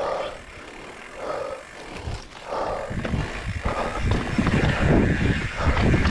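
Mountain bike riding down a dirt and rock trail: tyre and frame rattle over rough ground, with wind rumbling on the microphone that grows louder from about three seconds in as speed picks up. Soft, regular puffs come about every second and a quarter in the first half.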